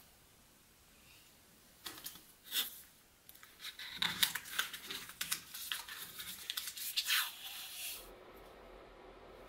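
Green tape being pulled off its roll and wrapped around a small battery pack, a dense crackling, peeling sound from about three and a half seconds in until near the end. A few sharp handling clicks come before it.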